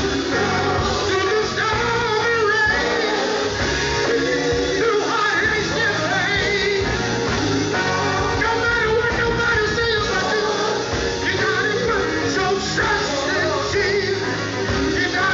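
Male gospel vocal group singing a song live, the lead voice wavering with vibrato over the group, backed by a band of electric guitars, bass, drums and keyboards. The music runs on without a break.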